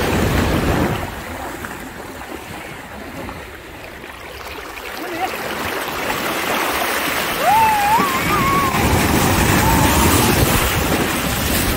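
Sea surf washing onto the beach: a rushing wash at the start, a lull, then a long swell of breaking waves building through the second half. A short high gliding cry cuts through about halfway.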